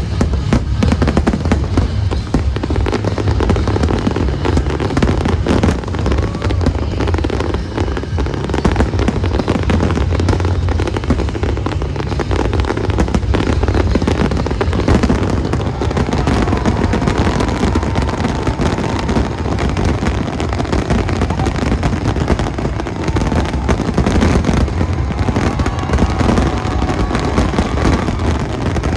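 Fireworks display in full barrage: dense, continuous crackling and banging of shells over a heavy low rumble, with thin wavering whistles in the second half.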